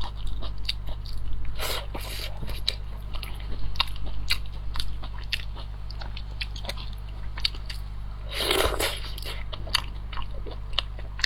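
Close-miked eating: a person biting and chewing food, with many small crunchy clicks. There is a louder burst of eating noise about eight and a half seconds in.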